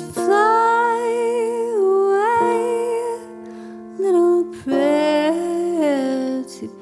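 Slow ballad: a woman's voice sings long held notes with vibrato over sustained keyboard chords, in two long phrases with a short note between them.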